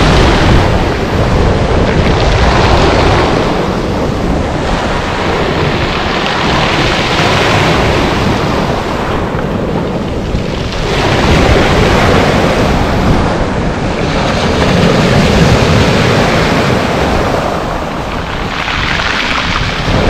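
Sea waves breaking on a pebble beach, the foam hissing up and back over the shingle in surges a few seconds apart. Wind buffets the microphone with a steady low rumble.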